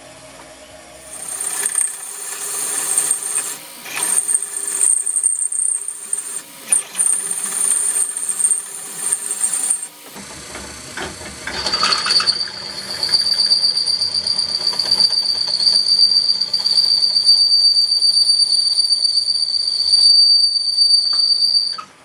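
Drill press boring into steel channel iron, the twist drill bit squealing with a steady high whine that drops to a lower pitch about halfway through and cuts off just before the end. A squealing bit is not cutting: burn spots on its cutting edges mean it needs sharpening.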